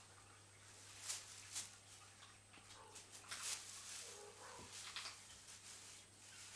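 Kittens wrestling on a crinkly plastic sheet: irregular soft rustling and scratching, with a brief faint kitten mew a little past four seconds in.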